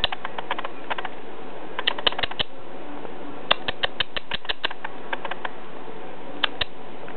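Quick runs of sharp clicks from a pet lop rabbit, several a second, in three bursts and a last pair near the end, over a steady hiss.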